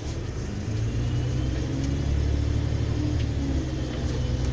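MAN Lion's City city bus engine running while the bus stands still, a steady low rumble that grows a little louder about a second in.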